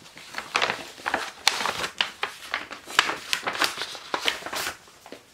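Paper and packaging rustling and crinkling as books are handled: a run of short, scratchy rustles that dies away near the end.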